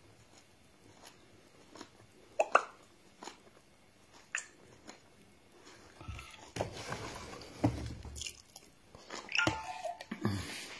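A person chewing and crunching a mouthful of garri and coconut close to the microphone. There are a few sharp clicks in the first half, and the chewing grows louder and denser about six seconds in.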